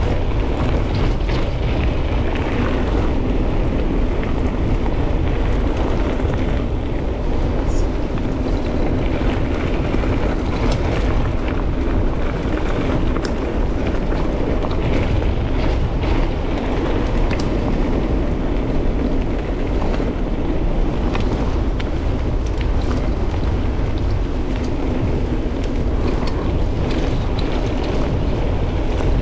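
Mountain bike on a fast cross-country descent: heavy wind buffeting on the GoPro's microphone over the rumble of tyres on a rough track, with frequent small clicks and rattles from the bike.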